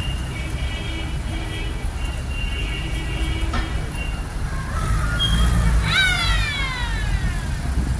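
Several WWII Willys jeeps with four-cylinder engines rumble at low speed as they drive past in a parade. Spectators' voices ride above them, and a high call falls in pitch about six seconds in.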